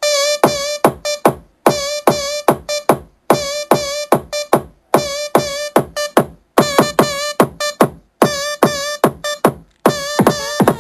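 Electronic dance track played loud through a mini speaker: a drum-machine beat under a warbling synth and a steady tone, chopped into repeated phrases with brief gaps between them.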